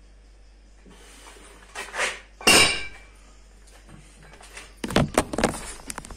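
Plate-loaded iron dumbbells set down on a concrete floor: a lighter knock, then one loud ringing metal clank about two and a half seconds in. Near the end comes a quick flurry of knocks and rubbing as the phone that is recording is picked up and handled.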